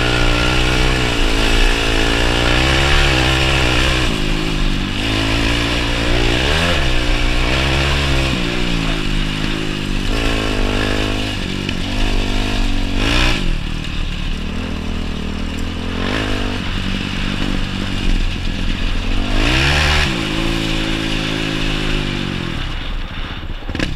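Yamaha YFZ450's single-cylinder four-stroke engine under hard riding, its revs rising and falling repeatedly as the throttle is worked, with several sharp rev-ups.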